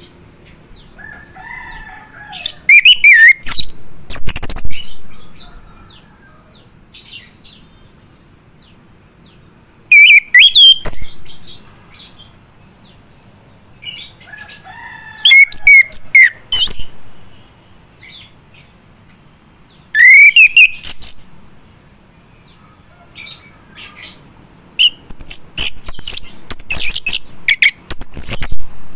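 Male chestnut-capped thrush (anis kembang) singing in full song. It gives five loud phrases of clear whistles and quick high, chattering notes, with pauses of a few seconds between them.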